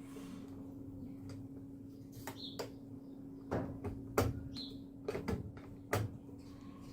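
A series of clicks and knocks as the General Electric washer's timer knob is turned by hand to advance a timer that no longer moves on its own, over a steady low hum.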